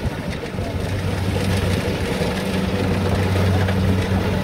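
A large engine running steadily at an even speed: a constant low hum with mechanical noise over it.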